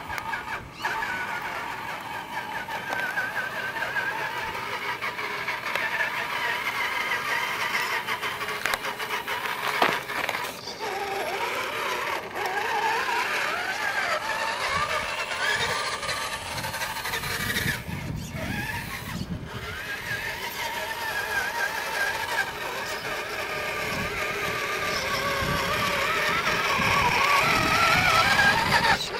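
Tamiya CC01 radio-controlled crawler's electric motor and gearbox whining, the pitch rising and falling with the throttle, over the crunch of its tyres on gravel. It grows louder near the end.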